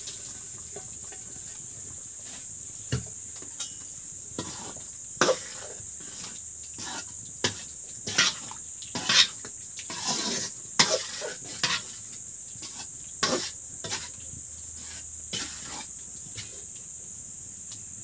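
A ladle stirring dal in a metal kadai, with irregular clinks, knocks and scrapes against the pan. Crickets chirr steadily throughout.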